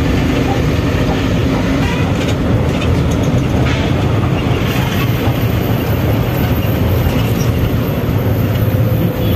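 Inside the cabin of a moving bus: the engine drone and road rumble run steady and loud, with a few brief clicks and rattles along the way.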